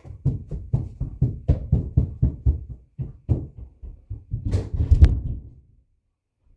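A rapid run of dull knocks, several a second, growing loudest about five seconds in and then stopping.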